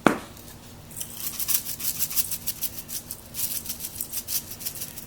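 Crushed red pepper flakes shaken from a spice shaker onto raw chicken breasts: a sharp click at the start, then quick repeated rattling shakes from about a second in.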